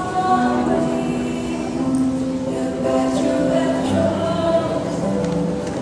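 Mixed choir of women's and men's voices singing in harmony, several parts holding long notes together and moving to a new chord every second or two.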